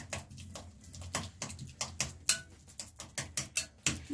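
A hand utensil mashing guacamole in a bowl: a run of sharp, irregular clicks and taps as it strikes the bowl, a few each second.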